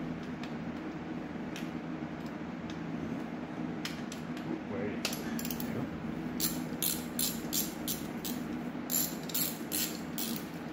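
Ratchet wrench clicking in quick runs as manifold nuts are spun off their studs. The clicking starts about halfway through, over a steady low hum.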